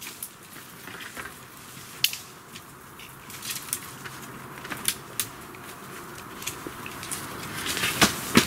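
Wooden poles and sticks being handled against a wall of stacked poles: scattered sharp wooden clicks and knocks with some rustling, the loudest near the end.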